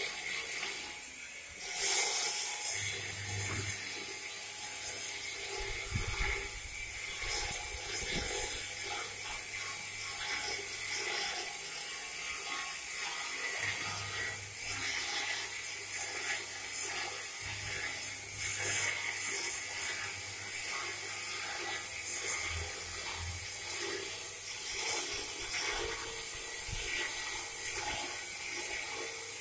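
Motorised plate rolling machine running: a low electric-motor hum with the clatter of its chain drive and gearbox. The hum starts and stops several times as the machine is switched on and off.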